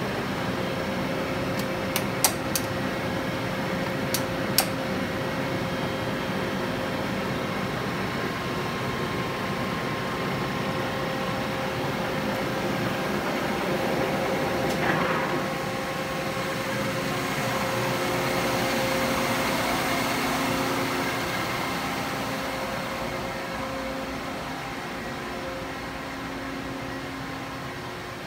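Steady machinery hum with several steady tones, and a cluster of sharp clicks about two and four seconds in, with a brief rustle of handling noise near the middle.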